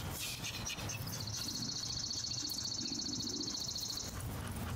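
A songbird trilling: one high, rapid trill about three seconds long, starting about a second in, over a low steady outdoor rumble.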